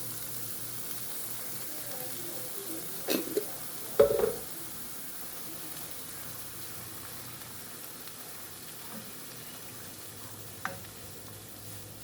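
Onion frying in bacon grease in a stovetop pot: a steady sizzle, with a few knocks about three seconds in and a louder one about four seconds in.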